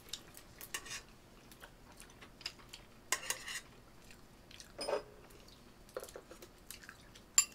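Chopsticks clinking and scraping against a metal pot and a ceramic bowl while noodles are served: scattered light clinks and taps, with a sharper click near the end.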